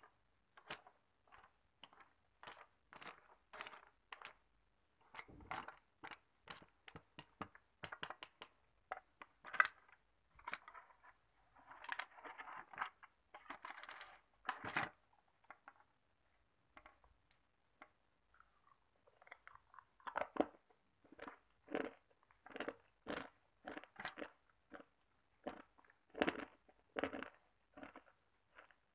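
Hard ice cubes made of frozen tap water being bitten and chewed, a fast run of sharp crunches with a pause of a few seconds about halfway through.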